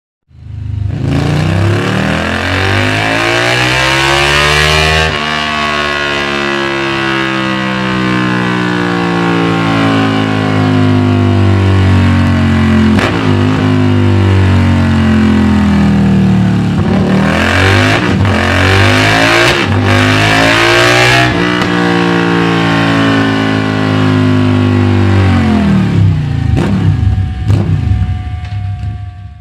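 Yamaha V-Max 1700's V4 engine through Delkevic Mini slip-on silencers, revving and accelerating with the pitch climbing and falling several times, with breaks between runs. A few short sharp pops come near the end as the revs drop, and the sound then cuts off.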